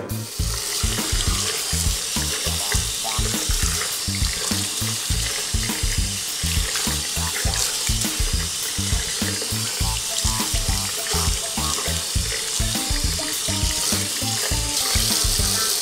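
Tap water running into a sink and splashing over gloved hands rubbed under the stream, with background music with a steady beat underneath.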